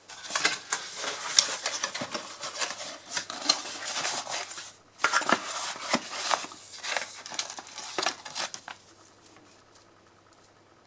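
Handling noise from unboxing: a cardboard box being opened and a plastic bag and paper manual rustling and crinkling, with small knocks and clicks. It briefly eases about halfway through and stops near the end.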